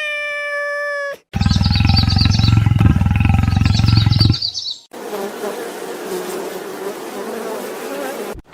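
A string of separate animal sounds, cut one after another. First a drawn-out pitched call, falling slightly, that ends about a second in. Then a loud low insect-like buzz with high chirps over it for about three seconds, and after a short break a rougher, noisier call that runs to near the end.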